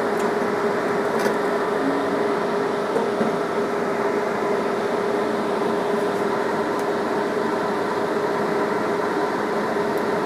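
Steady mechanical hum with one constant pitch over an even hiss, like a kitchen appliance or extractor fan running by the stove. A few faint metallic clinks of a ladle against a steel pot.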